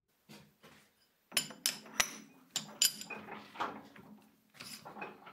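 A handful of sharp metal clinks and knocks, several with a short ring, as a round metal workpiece disc is handled and set against a lathe's three-jaw chuck.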